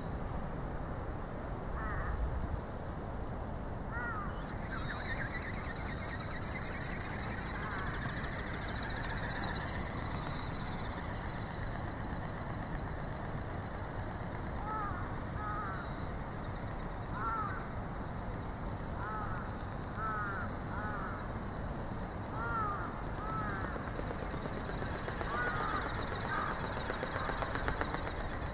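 Birds calling in many short, arched calls, coming thick and fast from about halfway through, over a steady high hiss.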